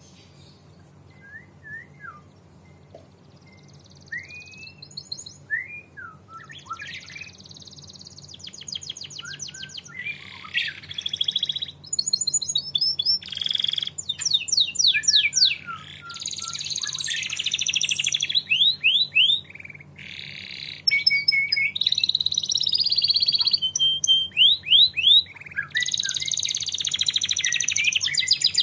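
Domestic canary singing: scattered short chirps at first, building after about eight seconds into loud, fast trills and rapid runs of repeated notes.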